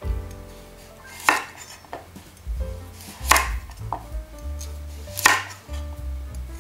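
Kitchen knife chopping through a raw carrot onto a wooden cutting board: three firm cuts, about two seconds apart.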